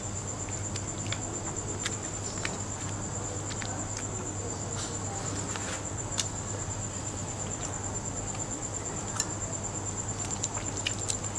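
A cricket trilling steadily at a high pitch, with a low steady hum beneath it. Over it come scattered small clicks and crackles of eating, chopsticks and prawn shells being handled, more of them near the end as a prawn is peeled by hand.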